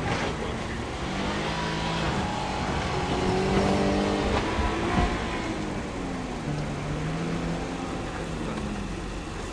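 Subaru Forester's flat-four engine under hard acceleration on a gravel off-road stage, revs climbing for about four seconds, dropping sharply about five seconds in as it shifts, then running at lower revs.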